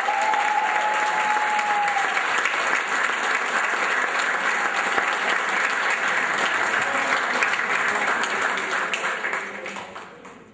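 Audience applauding: many hands clapping steadily, fading out near the end.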